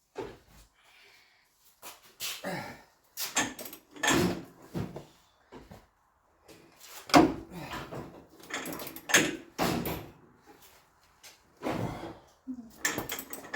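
Irregular metallic clanks and knocks from hand tools and parts being handled while the Bronco's suspension bolts are worked loose.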